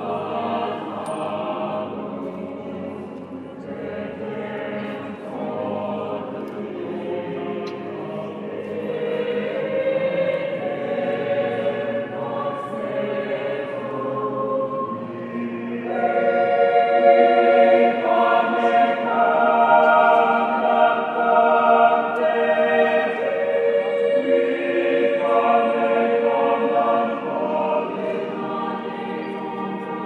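Mixed choir singing a cappella in a cathedral, with slow, long-held chords. The singing swells louder and fuller about halfway through.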